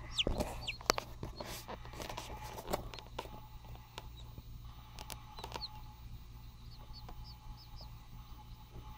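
Newly hatched chicken chicks peeping: short, high cheeps scattered through, mixed with light clicks and scratches, over a low steady hum.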